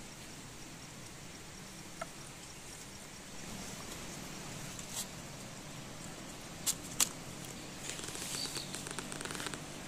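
Nylon hammock webbing strap being wrapped and pulled around a pine trunk: rustling of strap and fabric with a few sharp clicks about halfway through, growing busier near the end, over a steady hiss of forest background.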